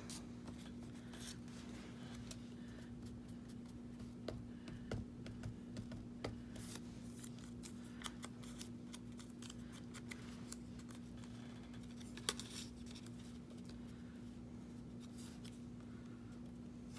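Paper and vellum pieces being handled on a craft cutting mat: faint scattered rustles and light taps, a few sharper ticks among them, over a steady faint hum.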